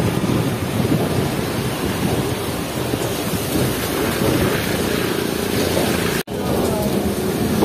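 Heavy rain and wind beating on the camera microphone, with rain water striking the camera, as a steady dense rush. The sound drops out for an instant a little after six seconds.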